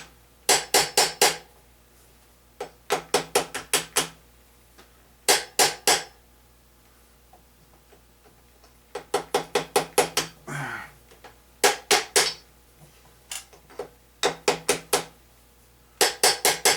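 Claw hammer striking in quick bursts of three to five sharp blows, several seconds apart, driving the number 7 piston and connecting rod out of the cylinder bore of a Chevy 350 V8 block. A brief sliding, falling sound comes just after the middle.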